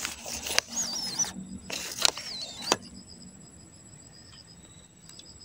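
Handling noise from the fishing pole and line: rustling and three sharp clicks in the first three seconds, with a faint wavering whistle twice. After that there is only a faint steady high tone.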